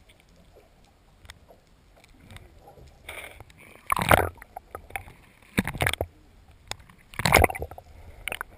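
Water sloshing and knocking, muffled through a waterproof action-camera housing held just under the surface, coming in several short bursts, the loudest about four seconds in, with scattered small clicks between.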